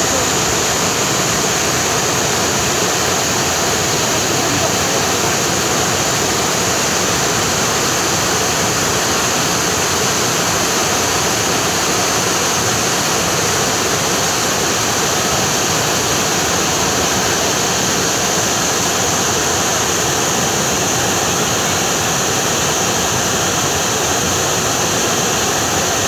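Waterfall pouring in thin sheets down a rock face and splashing into a pool below, a steady, unbroken rush of water.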